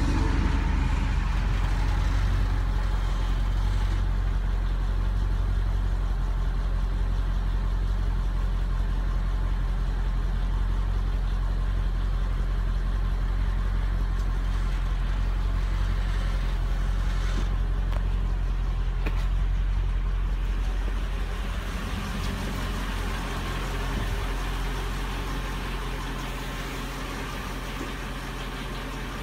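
Supercharged 5.4-litre V8 of a 2004 Mercedes S55 AMG idling steadily, its engine-driven pump supplying the ABC suspension during a rodeo test. Heard loud at the quad exhaust tips, then quieter from about 21 seconds on.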